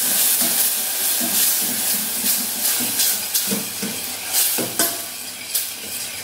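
Ground spice paste of garlic, cumin, pepper and chilli frying in hot oil with cumin and curry leaves, sizzling loudly at first and dying down gradually as it cooks. A spoon stirs it and knocks against the pan now and then.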